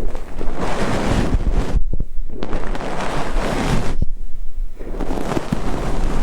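Close, soft swishing of a fluffy ear-cleaning wand brushed over the microphone, in three slow strokes about two seconds apart.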